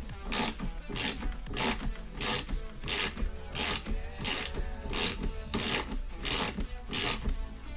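Rhythmic rasping, rubbing strokes of hand work on metal parts, about one and a half strokes a second, evenly spaced.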